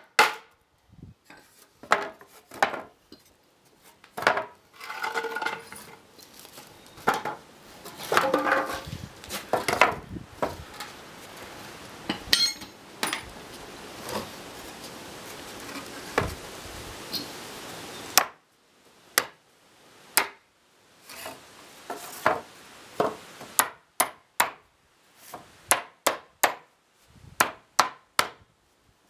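Hammer striking pallet boards to knock out nails: sharp wooden knocks, with loose boards clattering as they are shifted in the middle, and a quick run of blows, two or three a second, near the end.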